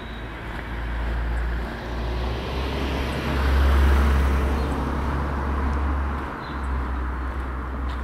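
A car passing on the street: tyre and engine noise swells to its loudest about four seconds in, then fades.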